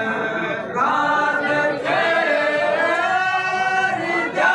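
Several voices singing together without instruments, in long held notes that waver and slide in pitch.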